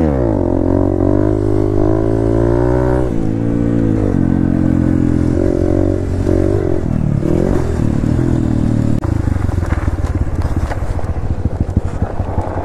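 Dirt bike engine revving up and falling back again and again as the bike accelerates and shifts along the trail. From about nine seconds in it drops to a lower, choppier off-throttle run.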